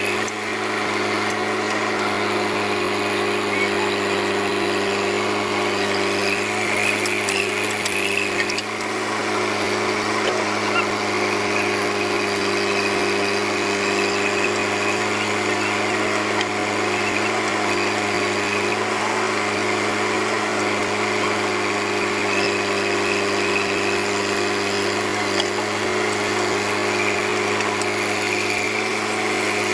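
JCB 3DX backhoe loader's diesel engine running with a steady drone while the backhoe arm digs and loads mud.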